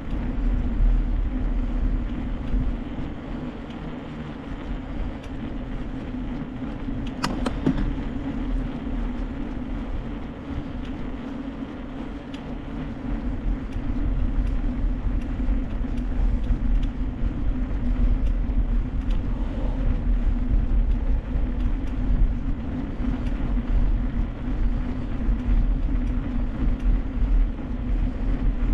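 Steady road noise of a mountain bike ride: deep wind rumble on the camera microphone and tyre hum, with scattered small clicks and rattles and a sharper click about seven seconds in.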